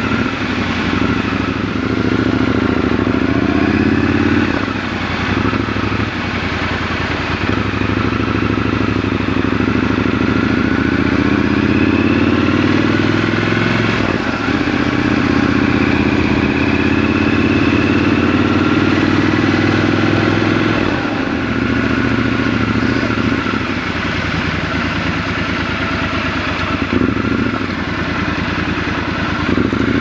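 Triumph Scrambler 1200 XC's parallel-twin engine under way: it rises in revs several times with short dips between, then runs lower near the end.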